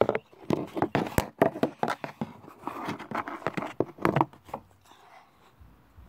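Handling noise from a smartphone being set down and propped against a toy tractor's plastic steering wheel: a quick run of knocks, scrapes and rubbing right on the microphone for about four seconds, then only faint sounds.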